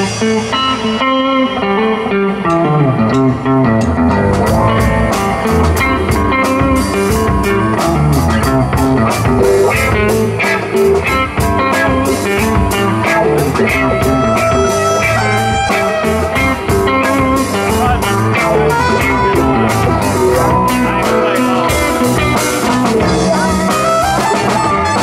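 Live blues-rock band playing: electric guitars and bass over a drum kit, with a cymbal ticking out a steady beat.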